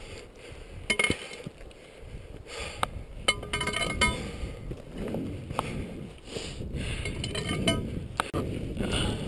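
Footfalls and scrapes on rock with sharp clinks while moving over a rocky ridge. A cluster of ringing clinks comes about three to four seconds in, over low wind noise on the microphone.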